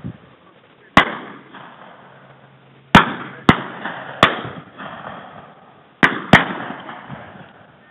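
Shotguns firing at driven pheasants: six shots over about five seconds, two of them in quick pairs, each with a trailing echo.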